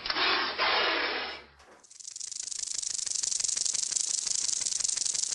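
Rattlesnake rattle sound effect: a fast, dry, steady buzzing rattle that starts about two seconds in. Before it, a loud hissing noise lasts about a second and a half.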